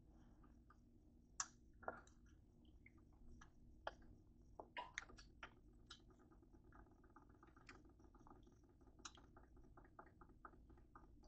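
Near silence with faint scattered clicks from a small plastic honey packet being squeezed and handled over a plate, then a run of faint rapid ticks, about five a second, in the second half.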